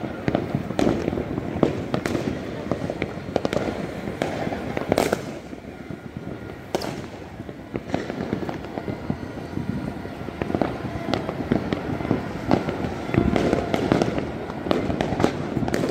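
Fireworks and firecrackers going off all over a city at once: a dense, unbroken crackle and popping with frequent sharper bangs.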